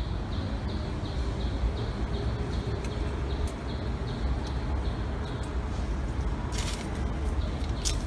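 Outdoor ambience: a steady low rumble with faint high chirps repeating about three times a second, and a brief rustling burst near the end.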